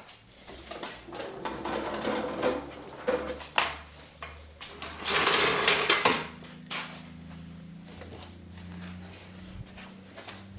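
Clanks, knocks and scraping of a wheel and tire being fitted back onto a Jeep Cherokee's hub. A louder rattling burst comes about five seconds in, then a quieter steady low hum.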